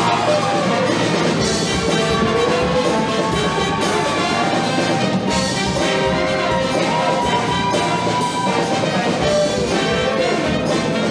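Show choir's live band playing a loud instrumental break, with brass horns (trumpets and trombones) carrying the melody between sung lines.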